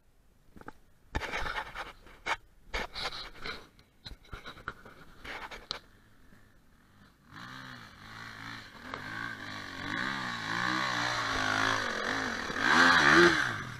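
Enduro dirt bike climbing a steep sandy hill: the engine comes in about halfway through, its revs rising and falling as the rider works the throttle, and grows louder as the bike nears the top. A few knocks and scrapes come before it.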